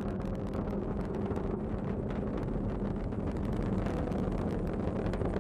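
Falcon 9 rocket's first stage, its nine Merlin 1D engines firing in ascent, heard as a steady rumble with a dense crackle.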